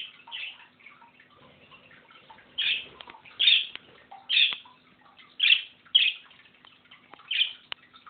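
Pet parrots calling: about eight loud, short calls at irregular intervals, over faint continuous twittering.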